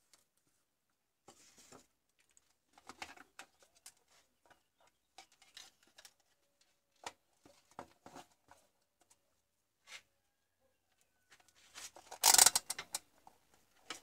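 Handling noises: scattered light clicks and rustles as a digital multimeter and its test leads are moved about and set down on a paper towel, with a louder rustling clatter near the end.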